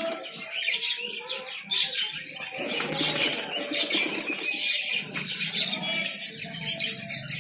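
Sherazi (Lahore) pigeons flapping their wings in several flurries inside a wire cage as they are caught by hand, with feathers and wings rustling against the mesh.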